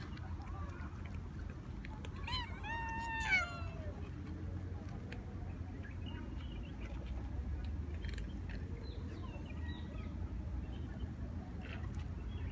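A cat meowing: one drawn-out meow about two seconds in that falls in pitch at its end.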